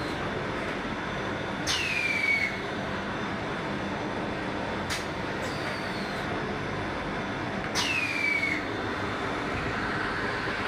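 Automatic L-bar sealer and heat-shrink tunnel running: a steady machine hum and blow, broken twice by a sharp cycle of the sealing bar, each a sudden hit followed by a tone falling in pitch for under a second, with fainter clicks between the cycles.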